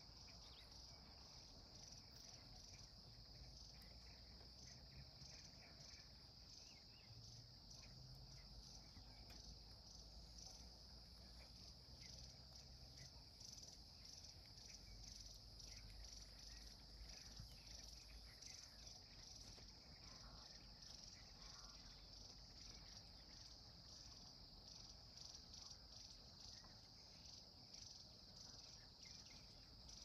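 Faint, steady high-pitched chirring of insects in grassland, with a soft low rumble underneath.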